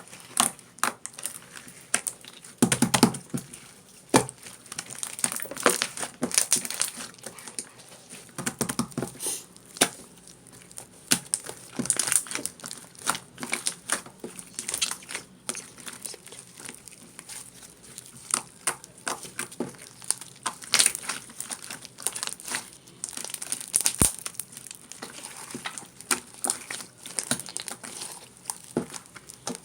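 Hands crinkling and crackling something, making irregular sharp crackles and clicks, with heavier handling noises about three and nine seconds in.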